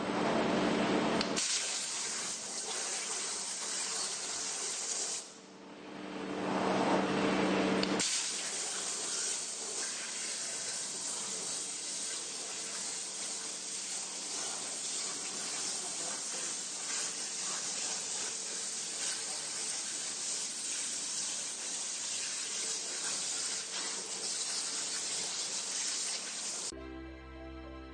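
High-pressure water jet cutting machine spraying: a loud, steady rush of water noise. It breaks off and restarts a few times in the first eight seconds, then runs evenly, and music comes in near the end.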